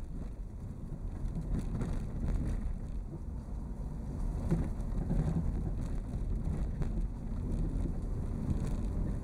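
A vehicle driving along a forest road: a steady low rumble with scattered faint clicks and knocks.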